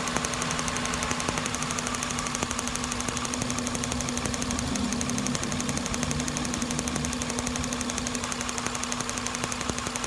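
Toyota engine idling while an inline spark tester on one ignition-coil wire snaps with each spark, a rapid, even ticking over the steady engine hum. The spark is firing normally at this point.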